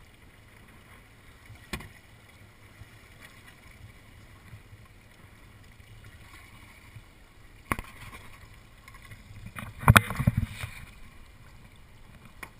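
Sounds on a small fishing boat: a steady low rumble with a few sharp knocks, and a burst of heavy thumps about ten seconds in.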